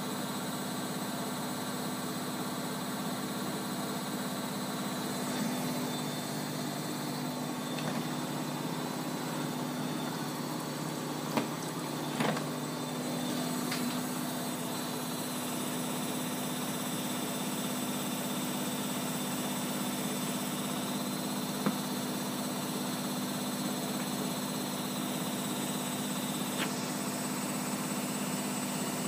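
Bosch Maxx 40 WFC2445 washing machine running with a steady motor hum, broken by a few brief clicks or knocks.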